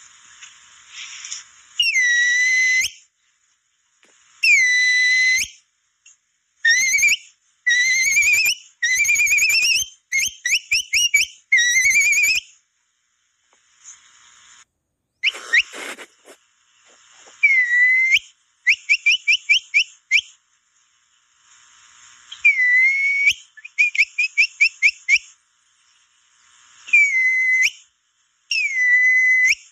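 Capybara call whistle (pio) blown in groups of whistled notes to lure capybaras. Some notes are held about a second, others are quick rising chirps run together in fast trills of about five a second.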